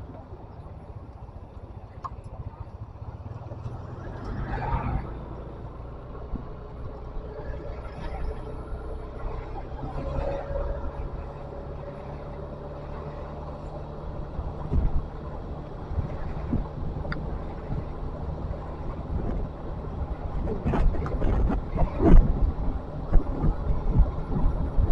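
Steady vehicle engine and road traffic noise, a low hum with a few short louder bumps near the end.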